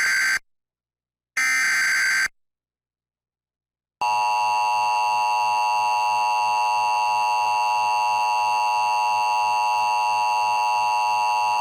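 Emergency Alert System tones. Two short bursts of the SAME digital header's data screech come in the first two seconds. From about four seconds in, the steady two-tone attention signal (853 and 960 Hz) sounds, announcing a severe thunderstorm warning from the National Weather Service.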